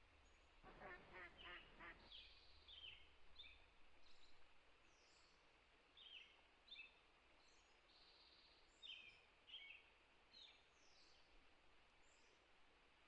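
Faint birds: a duck quacks four times in quick succession about a second in, and small birds give short high chirps throughout.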